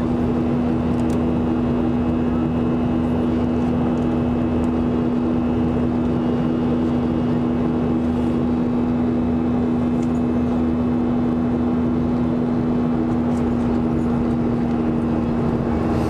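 Cabin noise of a Boeing 737-400 in flight, heard from a window seat beside its CFM56-3 turbofan engine. It is a loud, steady rush of engine and air noise with a steady low hum running through it, plus a few faint ticks.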